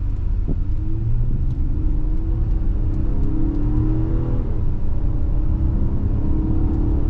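A 2024 Nissan Pathfinder's naturally aspirated 3.5-litre V6 accelerating hard from low speed in Sport mode, heard from inside the cabin over road rumble. Its note climbs and drops back about three times as the automatic transmission upshifts.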